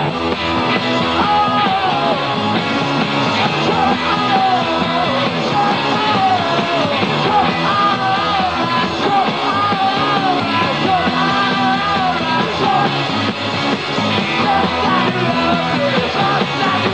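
Rock band playing a punk rock song, with a wavering lead line bending up and down over a steady, dense backing.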